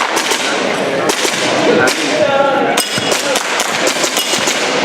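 Airsoft gun firing a string of sharp cracks at irregular intervals as the shooter works through a stage, with BBs striking metal targets. A short metallic ring sounds about two and a half seconds in.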